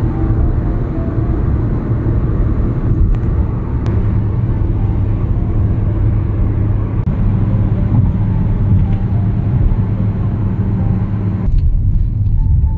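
Steady low rumble of a car's engine and tyres at expressway speed, heard inside the cabin. Near the end the higher hiss cuts off suddenly, while the low rumble carries on.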